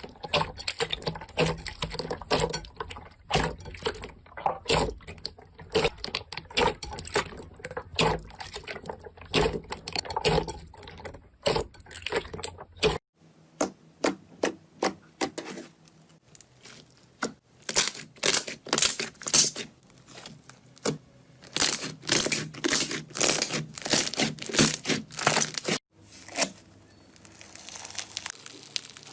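Slime being squeezed, stretched and poked by hand, giving rapid sticky clicks and crackling pops of trapped air. The clicks come thick and fast at first, then sparser and sharper, and the sound changes abruptly twice.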